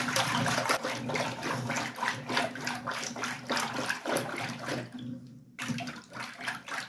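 Yogurt being churned into lassi in a steel pot with a hand-rolled wooden churner (madhani): fast, rhythmic sloshing and splashing of the thick liquid, which stops briefly about five seconds in and then starts again.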